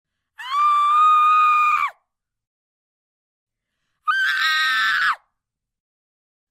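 Two women's horror screams, one after the other: a long, high, held scream of about a second and a half that drops in pitch as it breaks off, then after a pause a shorter scream of about a second, also falling at the end.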